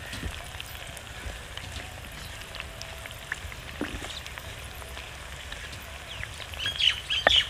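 Strips of moringa root frying in mustard oil in a clay pot: a steady sizzle with small crackles as a wooden spoon stirs them. A few louder scrapes and a sharp knock come near the end.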